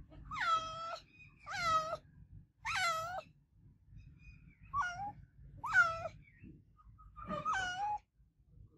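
A domestic cat meowing loudly and repeatedly: six meows of about half a second each, a second or two apart.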